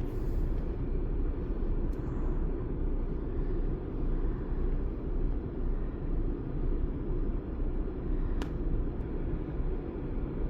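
Car engine idling steadily, heard as a low, even rumble, with one sharp click about eight seconds in.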